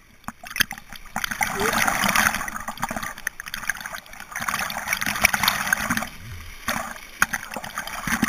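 Shallow river rapid rushing and splashing around and over a camera at water level. It starts quiet, then rises into a dense rush about a second in, with many sharp splashes of water hitting the camera.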